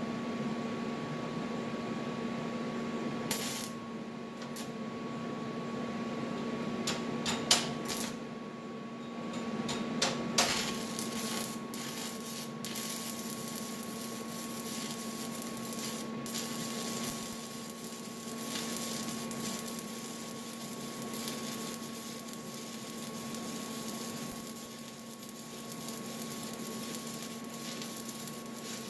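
Stick-welding arc burning a 7018 rod, crackling and hissing steadily over the welder's hum, with a few sharp pops in the first ten seconds or so.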